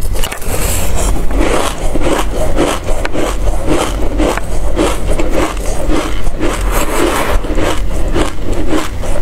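Close-miked chewing of a mouthful of dry black seeds: a steady gritty crunching, about three chews a second.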